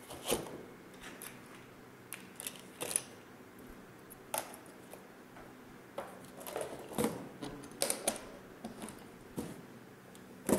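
Irregular clicks, knocks and light rattles of a laser level being packed into an aluminium hard carrying case and the case being closed and lifted.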